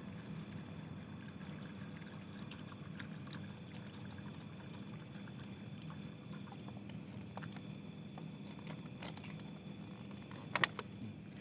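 Water trickling from a plastic bottle into a small plastic bowl over steady low background noise, with scattered small clicks and a louder sharp knock near the end.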